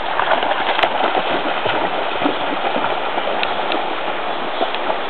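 Golden retriever bounding into a river, its legs splashing through the shallows in quick, irregular splashes over the first couple of seconds, over the steady rush of the river's choppy water.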